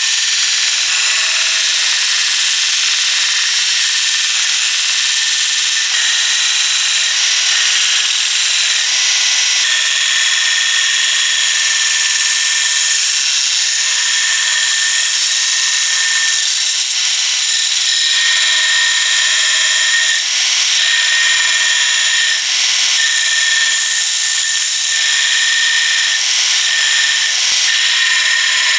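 A power tool works on the steel of an old saw blade, running continuously under load. It gives a steady high whine over a grinding hiss, with small dips in level now and then.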